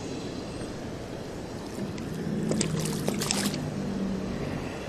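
Steady rush of river water below a dam. A low hum joins about two seconds in, and a short flurry of clicks and knocks comes in the middle.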